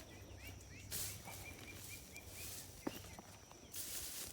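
Two short scraping bursts of a digging tool driven into garden soil, about a second in and near the end, with a bird in the background chirping a quick run of short notes between them.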